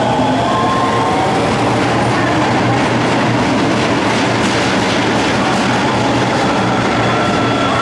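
Osaka Metro Chuo Line train moving through the station close by: a loud, steady running noise with wheels clicking over the rail joints and a high, steady whine.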